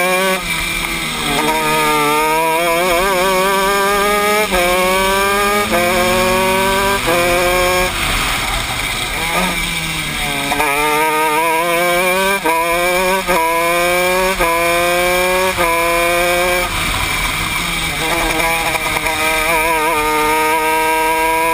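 Honda 125cc two-stroke shifter kart engine heard onboard, revving up hard and clicking through several quick upshifts. Around 8 s in it backs off with lower revs and downshifts through a corner, then climbs through the gears again, ending in a long pull at high revs.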